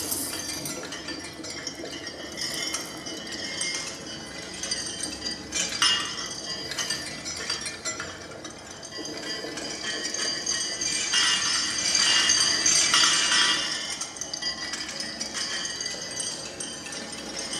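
Small bells and other small objects clinked and rattled by hand in an improvised sound performance. The jangling comes in clusters, with a sharp strike about six seconds in and the densest, loudest jangling about two-thirds of the way through.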